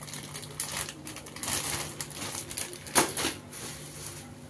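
Thin plastic bread bag crinkling and rustling as it is handled, with one sharp, louder crackle about three seconds in.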